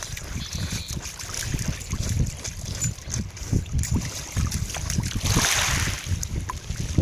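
Wind buffeting the microphone over shallow water lapping at the shore, with a short splash of water about five seconds in.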